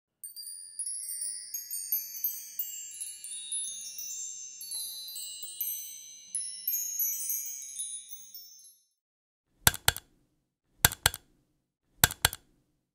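Twinkling chime sound effect, many high bell-like notes overlapping and fading out about nine seconds in. Then three short groups of mouse clicks, about a second apart.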